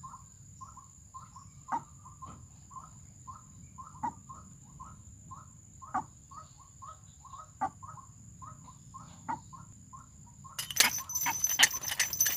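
White-breasted waterhen calls: a monotonous run of short notes, about three or four a second, with a louder, sharper note every second and a half or so. Near the end, a loud crackling rustle takes over for about two seconds.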